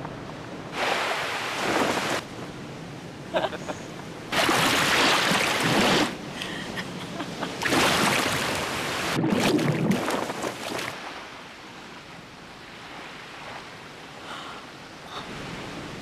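Ocean surf: waves washing in, four loud swells of rushing noise over the first eleven seconds, then a quieter steady wash.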